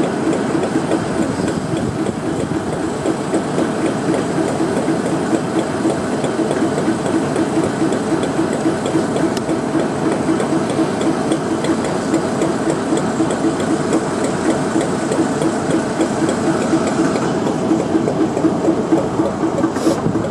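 DB Schenker Class 60 diesel locomotive (60015), with its eight-cylinder Mirrlees engine, idling while stopped at a signal. The engine gives a steady, loud drone with a fast, even beat.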